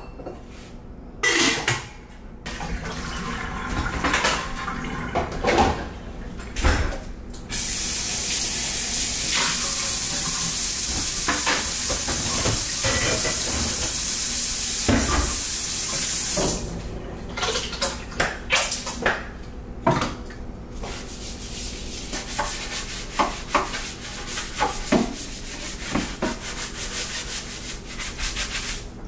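Dishes clinking as they are handled at a stainless steel kitchen sink, then the faucet running steadily into the sink for about nine seconds before it is turned off. After that come more clinks and rubbing as the sink is scrubbed.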